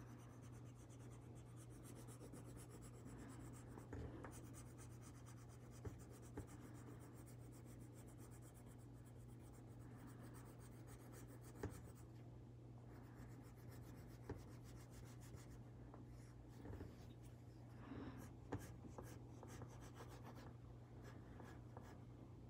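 Faint scratching of a brown colored pencil shading on paper in steady back-and-forth strokes, over a low steady hum, with a few light taps.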